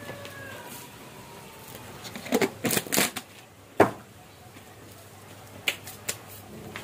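A few sharp clicks and knocks: a quick cluster about two to three seconds in, the loudest single knock near four seconds, and two lighter ones near the end.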